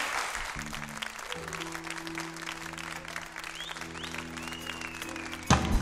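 A studio audience applauding while soft, sustained music chords play underneath. Just before the end, louder music with a beat comes in.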